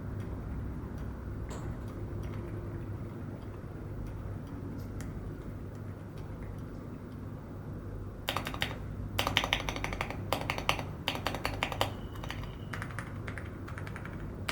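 Typing on an Epomaker RT100 keyboard fitted with Epomaker Sea Salt Silent linear switches. Fast runs of muted keystrokes start about eight seconds in, after a stretch of low background hum with only a few faint taps.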